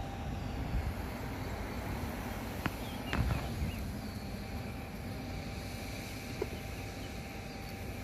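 Steady low outdoor rumble of background noise, with a couple of brief clicks about three seconds in.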